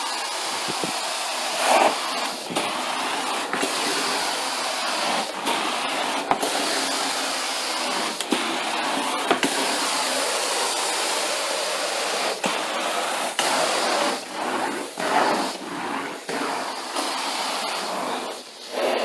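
Carpet-cleaning extraction wand sucking air and water through the carpet: a steady loud rushing hiss with brief dips every few seconds as the wand is stroked and lifted.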